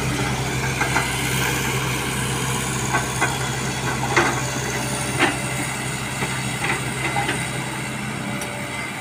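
E12B crawler excavator's diesel engine running steadily while the machine works, with a few short sharp clanks scattered through.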